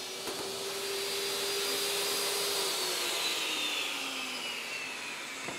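Portable table saw running with a steady whine, then switched off about three seconds in, its pitch falling as the blade spins down. A single sharp knock near the end.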